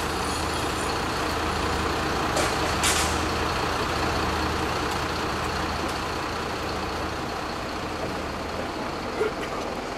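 Loud, dense street-clash din with a steady low engine hum under it. Two sharp metallic clanks come about two and a half and three seconds in.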